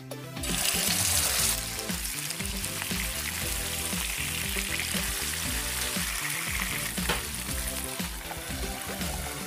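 Thick pork neck steaks sizzling as they sear in hot garlic oil in a frying pan. The sizzle starts loudly about half a second in, then settles to a steady sizzle.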